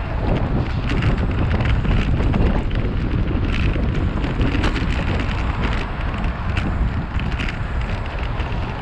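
Wind buffeting the microphone of a camera riding on a moving bicycle: a loud, steady low rumble, with short ticks and knocks scattered through it.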